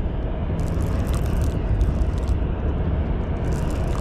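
Baitcasting reel being cranked to bring in a hooked blue catfish, its gears giving off several short runs of fine rapid clicking over a steady low rumble.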